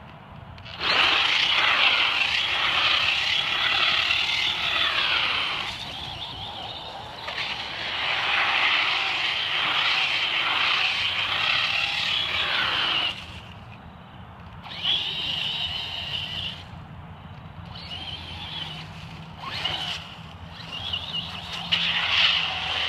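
Traxxas Stampede VXL RC truck's brushless motor and drivetrain whining at high speed on a 3S LiPo, the pitch rising and falling with the throttle. Two long runs of about five seconds each, then several shorter bursts with brief easings between them.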